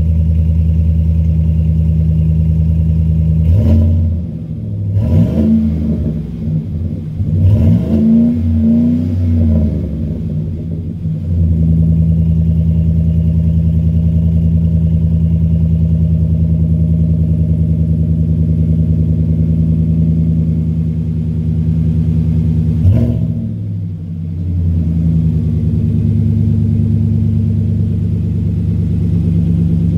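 A 2021 GMC Sierra's 5.3-litre V8 idles through a MagnaFlow cat-back dual exhaust with straight rear-exit pipes. The engine is revved several times in quick succession from about four seconds in until about eleven seconds, then settles back to a steady idle, with one more short rev about three-quarters of the way through.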